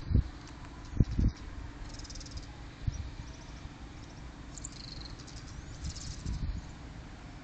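Outdoor ambience: wind buffeting the microphone in a few short low thumps over a steady low hum, with bursts of high chirping from small birds.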